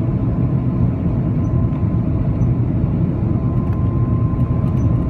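Cabin noise of an Airbus A330-200 on final approach, heard from a window seat over the wing: a steady, loud low rumble of engines and airflow with a thin steady whine running through it.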